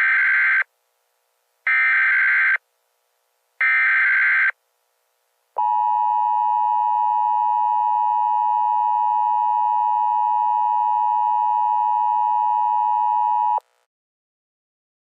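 Emergency Alert System tones: three short bursts of SAME header data, about a second each, followed by the steady two-tone EAS attention signal held for about eight seconds, which cuts off abruptly. Together they mark the start of an emergency alert broadcast.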